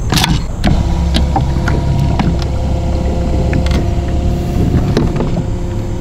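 Sevylor electric trolling motor running on a kayak: a steady low hum with a faint whine that settles in about a second in, with a few light clicks over it.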